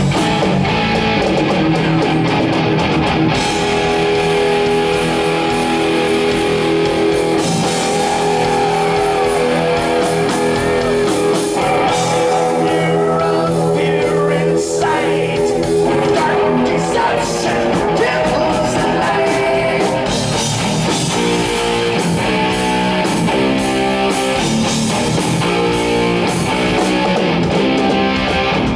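Live thrash metal band playing loud: distorted electric guitars, bass and a drum kit. Sustained chords give way near the end to a choppy, chugging riff.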